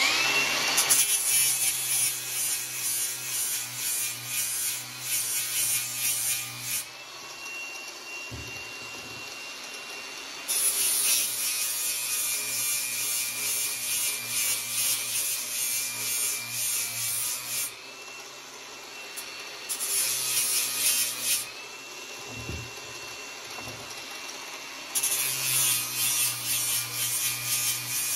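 Angle grinder with a flap wheel grinding down the steel end of a hydraulic top link, in four passes with the motor spinning freely between them. Metal is being taken off a little at a time so the end fits its mount.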